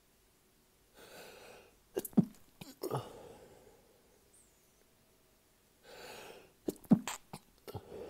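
A person sneezing twice as part of a sneezing fit. Each sneeze comes after an in-drawn breath of about a second; the first comes about two seconds in, the second near the end.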